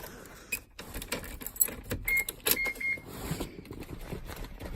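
Car keys jangling and clicking as they are handled, with three short high-pitched beeps about two seconds in.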